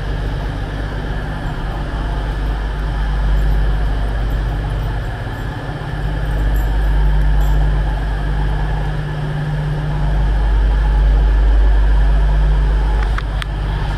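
Diesel passenger trains standing at a station platform with their engines idling: a steady low rumble that swells and eases every few seconds.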